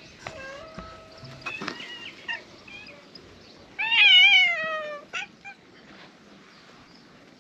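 Cats meowing: a few short meows in the first three seconds, then one loud, long, wavering meow about four seconds in that falls in pitch toward its end.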